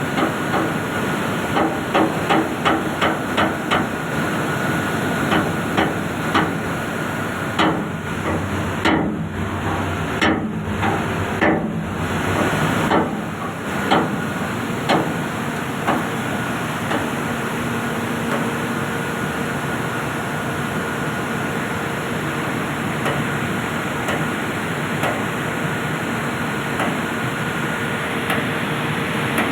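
Repeated hammer blows on metal, about two or three a second, as a bearing is knocked on or off the shaft of a boiler's forced draft fan. The blows stop about halfway through, leaving a steady machinery hum and hiss.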